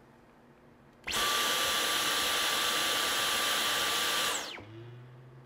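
Vacuum cleaner switched on about a second in, running steadily with a constant high motor whine for about three seconds, then switched off and winding down with a falling pitch.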